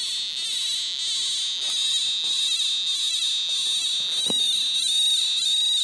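MicMag Handy magnetic field detector sounding its audio signal as it picks up the pulsed field of an MRS 2000 PEMF probe: a steady high tone with a rasping pulse about twice a second. A light knock about four seconds in.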